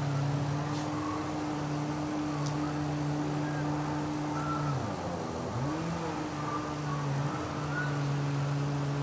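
Electric power sander running with a steady hum. About five seconds in, its pitch sags and climbs back up as the motor slows and speeds up again.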